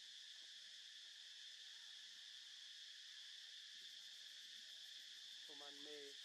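Faint, steady insect chorus, an even high-pitched drone. Near the end a brief faint pitched voice comes in.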